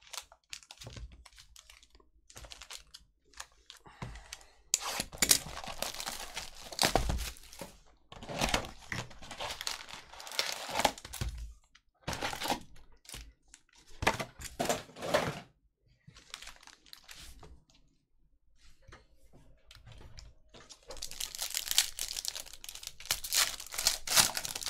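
Panini basketball card boxes and foil packs being torn open by hand: repeated bursts of tearing and crinkling, with a long run of foil crinkling near the end.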